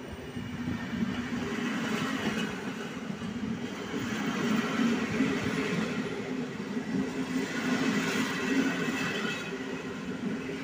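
PKP Intercity passenger coaches rolling past on the platform track, their wheels running on the rails in a steady rumble that swells twice as the cars go by.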